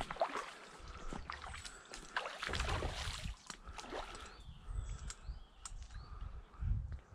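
A hooked salmon thrashing and splashing at the river's surface, the splashes heaviest in the first three seconds and then dying away, with a low rumble underneath from about halfway.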